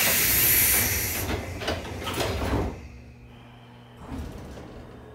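Pneumatic sliding doors of a JR 105 series electric train closing: a loud burst of air hiss, then the doors sliding shut with a few knocks, all over about two and a half seconds in. A steady low hum continues underneath, with a light knock about four seconds in.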